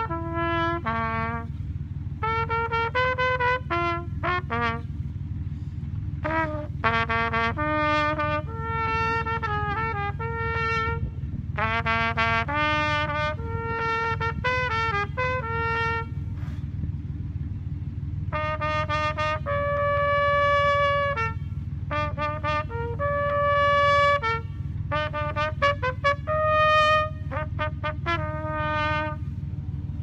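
Trumpet played live, a melody of mostly short separate notes with a few longer held ones, the playing stopping just before the end. A steady low rumble runs underneath.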